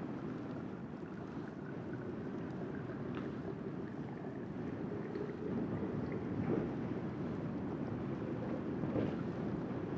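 Strong wind rushing and buffeting against the microphone in a steady low roar, with a louder gust or bump about six and a half seconds in and again near the end.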